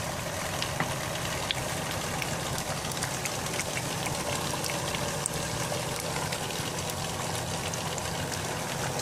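A large pot boiling hard on a gas stove: a steady rushing noise with scattered small pops of bubbles bursting.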